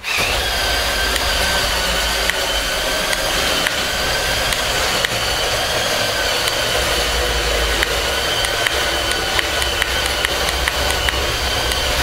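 Electric motors and gearing of a CADA C61056 building-block remote-control bulldozer whining steadily as it drives on its plastic tracks, with scattered light clicks from the tracks and gears.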